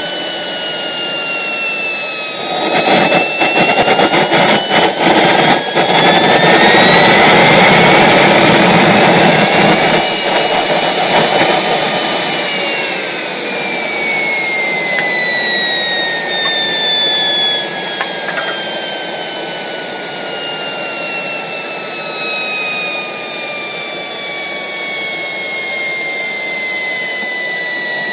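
Small jet turbine engine starting up: its whine climbs in pitch, with irregular popping and a loud rushing noise between about 3 and 6 seconds in as it lights. It peaks around the middle, then the whine falls steadily as the engine spools down.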